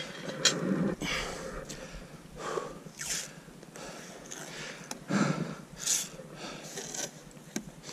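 A winded person breathing heavily after exertion, a few loud breaths a second or two apart, with one sharp click about half a second in.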